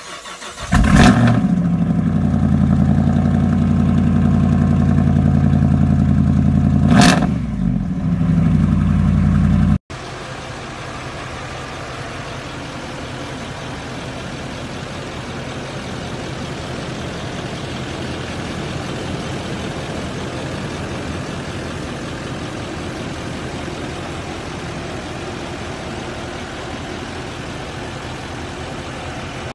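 Lifted Ram pickup's engine cranking and catching about a second in, then running loudly through its large exhaust, with a short blip at about seven seconds. It cuts off sharply near ten seconds, leaving a quieter, even noise.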